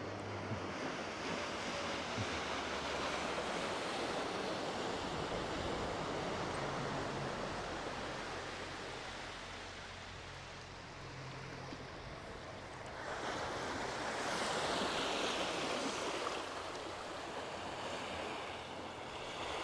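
Small bay waves washing onto the shore: a steady rushing that swells louder about two-thirds of the way through.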